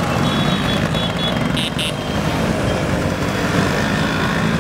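A procession of many Vespa scooters riding past, their small engines running together in a steady, dense drone. Two short high beeps sound a little before halfway.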